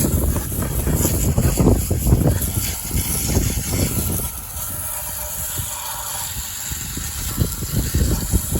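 Strong wind gusting against the microphone in low buffeting rumbles, easing for a few seconds midway, over a steady high hiss.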